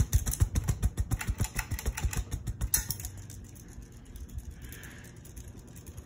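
Harbor Breeze Builder's Best ceiling fan running, with a rhythmic pulse of about six beats a second as the blades sweep past. The pulse fades out about halfway through, leaving a faint steady sound, and there is a single click about three seconds in.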